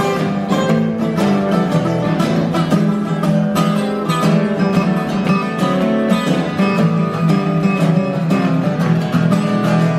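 Background music: a blues instrumental led by plucked and strummed acoustic guitar, with a steady low bass line.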